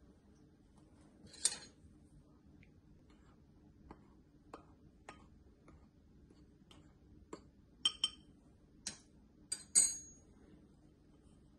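Metal spoon tapping and clinking against a small ceramic bowl and a glass mixing bowl while flour is spooned out: scattered light taps, then a few louder ringing clinks near the end.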